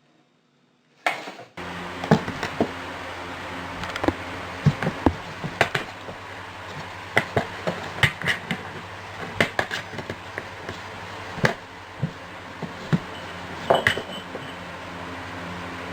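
A run of sharp, irregular knocks and taps, a few of them ringing briefly, over a steady low hum, starting about a second in.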